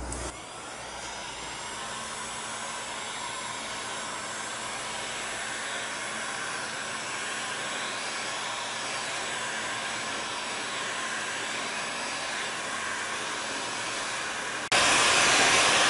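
Wagner hot-air heat gun blowing steadily, a fan-driven rush of hot air, as it heats thin wooden strips to pre-bend them. It gets suddenly louder near the end.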